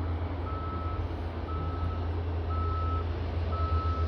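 Vehicle reversing alarm beeping at an even pace, about one half-second beep each second, four times, over a steady low rumble.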